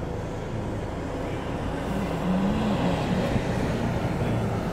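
A car-sized SUV driving past on the road, its engine and tyre noise growing louder about halfway through.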